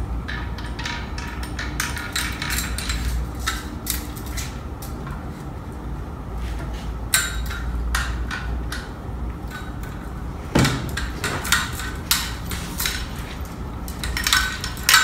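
Metal tripod speaker stand being adjusted by hand: scattered clicks and rattles from its tubes and locking knob, with a sharper knock about ten and a half seconds in, over a low steady hum.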